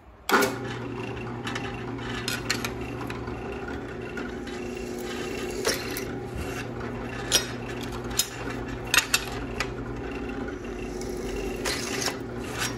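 Drill press running with a twist bit cutting through aluminum angle: a steady motor hum under the rasp of the bit in the metal, with sharp clicks every second or two. It starts abruptly just after the beginning.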